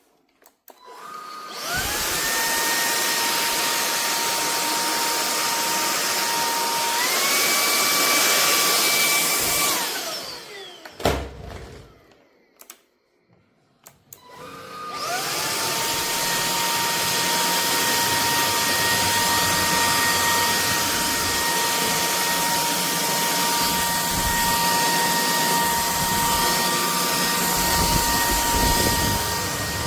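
Bulelink cordless stick vacuum cleaner motor spinning up with a rising whine and running, stepping up to a higher pitch partway through, then winding down. After a knock and a brief pause it starts up again and runs steadily.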